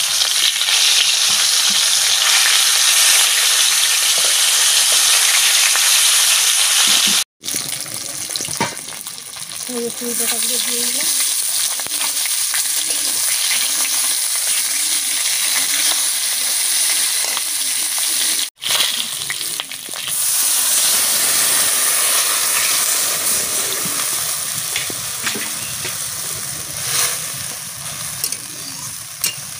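Hot oil sizzling in a kadai as pieces of fried rui fish and chui jhal stems are stir-fried with a metal spatula. The hiss is loudest in the first few seconds and breaks off abruptly twice. Near the end, water is poured into the pan.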